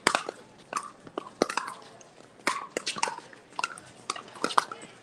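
Pickleball paddles hitting a plastic ball: many sharp pops at an irregular pace, often several close together.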